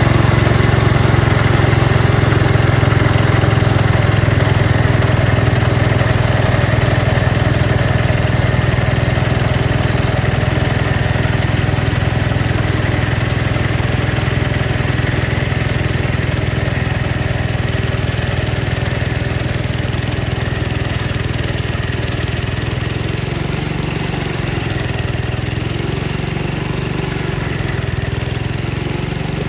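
Gravely Commercial 10A walk-behind tractor engine running steadily under its snowblower attachment, a continuous low drone that slowly grows fainter over the last third.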